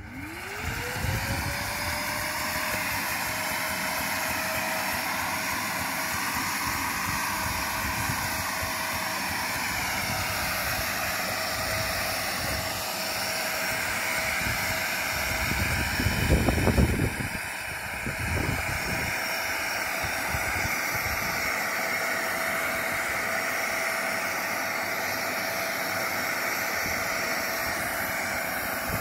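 Pond vacuum running: its motor spins up with a quickly rising whine, then holds a steady high hum over a hiss of water drawn through the hose. About 16 seconds in there is a louder rush of low noise lasting about a second.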